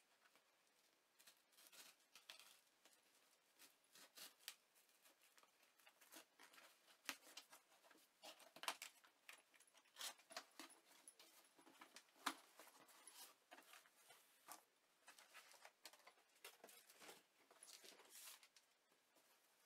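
Faint, irregular scraping, crackling and tapping of a cardboard shipping box being opened by hand: a utility knife slitting the packing tape, the tape and flaps pulled apart, and paper rustling against the cardboard.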